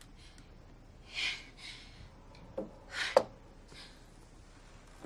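A person's heavy, gasping breaths, three or four short sharp ones, the loudest a little after three seconds in.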